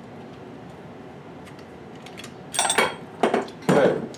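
Metal hand tools and short copper pipe pieces clattering against each other and onto a wooden board, in three loud bursts in the second half after a stretch of faint ticking.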